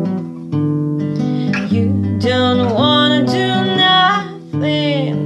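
Acoustic guitar strummed and picked in a song, with a voice singing a long, wavering held line about two seconds in.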